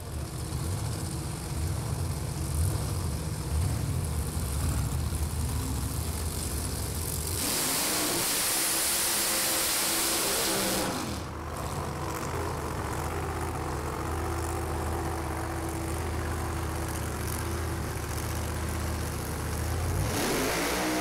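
Drag racing car engine running at low revs with a steady low rumble. About seven seconds in, a loud hissing noise joins it for some three seconds.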